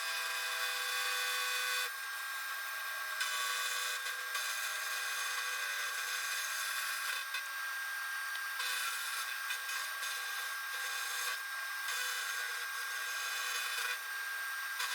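End mill in a milling machine spindle cutting across the top face of a cast metal pallet, flattening it. A steady machining whine with several held tones that steps louder and quieter every second or two as the cut changes.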